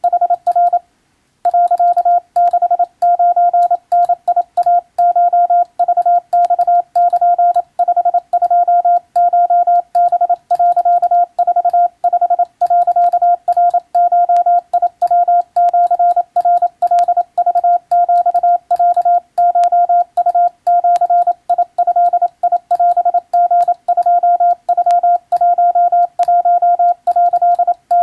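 Morse code sent by hand on a telegraph key: one steady beep tone keyed on and off in quick dots and dashes, with a short break about a second in. It is Japanese Wabun code, read from a telegram practice book.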